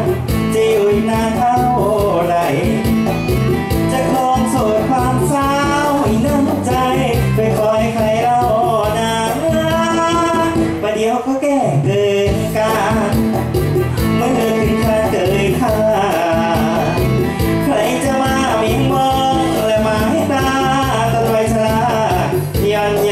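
Thai luk thung song played loud over the stage speakers: a male singer singing into a microphone over a backing band track.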